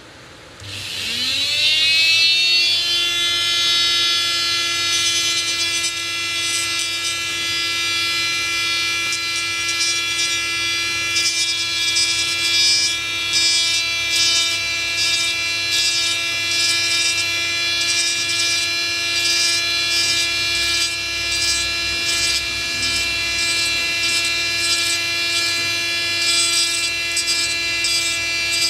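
Small handheld rotary tool switched on about half a second in, its whine rising in pitch and then holding steady. From about five seconds on, a rasping comes and goes as its round bit grinds away a glued-down eMMC chip on a tablet's circuit board.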